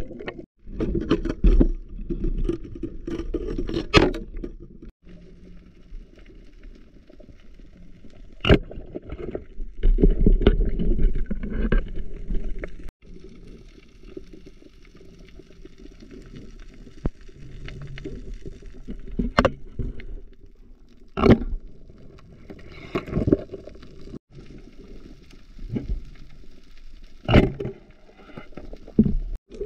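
Underwater sound during a night spearfishing dive: a muffled low water rumble with gurgling, and sharp knocks every few seconds, about eight in all, with a faint crackle higher up from about halfway.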